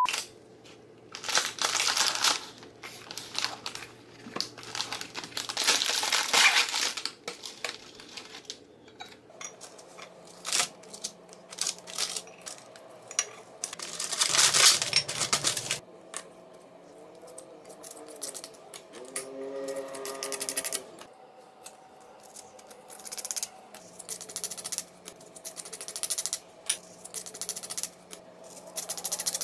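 Plastic Oreo packaging and its tray crinkling and rustling in several loud spells, between many small clicks and taps of Oreo cookies being handled, twisted apart and set down on a plate.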